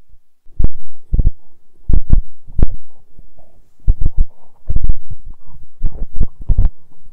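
Wind buffeting a phone's microphone: loud, irregular low thumps and rumbling that come in uneven gusts, starting about half a second in.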